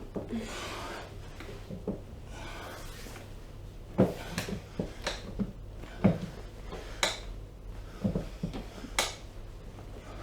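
Breathing during a chiropractic back stretch, then a handful of sharp clicks and knocks, about five over five seconds, from the body being worked on the table.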